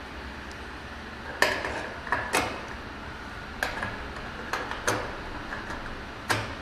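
Sharp metal clicks and light scraping as a fuel level sending unit's lock ring is worked around into place on a new metal fuel tank, about seven irregular clicks over a steady low hum.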